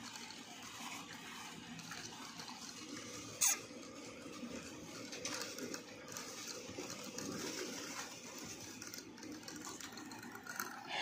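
Dwarf hamsters drinking from a water bottle's metal sipper tube: a faint, irregular watery sound with soft ticks, and one sharp click about three and a half seconds in.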